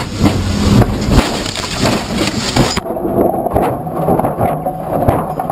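Race car crashing, heard from inside the cabin: a rapid run of hard impacts and crunching bodywork as it goes off and tumbles. After about three seconds these ease to quieter knocks and rattles over a steady hum.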